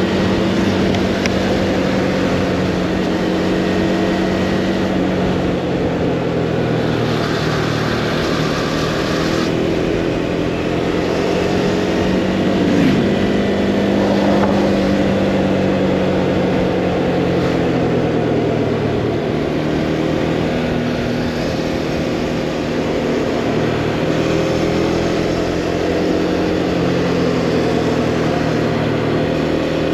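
Motorcycle engine running on a winding downhill ride, its pitch rising and falling again and again with throttle and gear changes, over a steady rush of wind and road noise.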